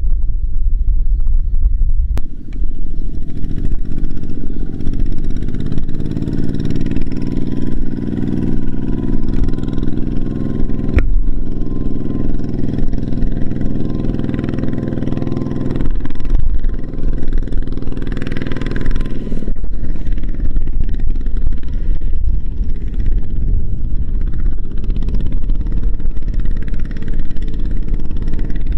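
Single-cylinder diesel engine of a two-wheel walking tractor running under load as it hauls a trailer of rice sacks through mud, its note changing abruptly a couple of times.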